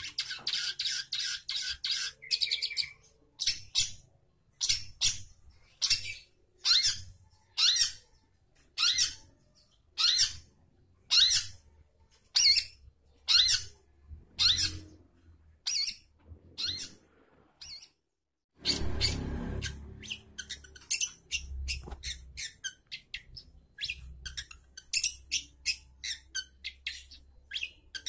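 Long-tailed shrike (cendet) singing in its cage: a fast chattering run, then loud high calls repeated about once a second. About two-thirds through comes a brief break with a low rumble, then the shrike chatters faster again.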